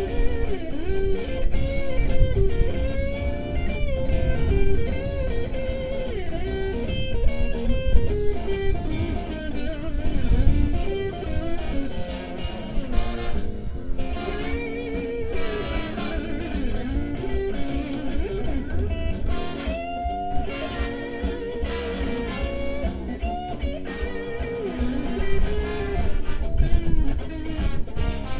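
Live blues band music: an amplified guitar plays a lead line with bending notes over the band's blues backing.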